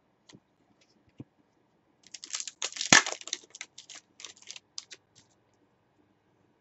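Trading cards being handled: a few faint clicks, then a dense run of crisp clicks and papery rustles lasting about three seconds, loudest about a second into the run.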